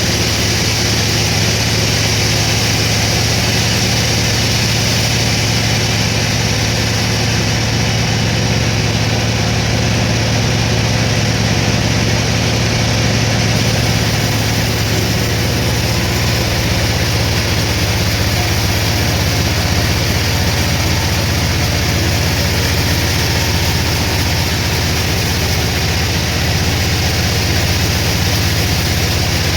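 Sawmill machinery running steadily, a continuous low mechanical hum under a steady hiss.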